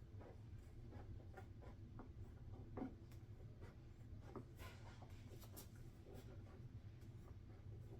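Faint scratching and snipping of scissors cutting through fabric, in short irregular strokes over a low steady hum.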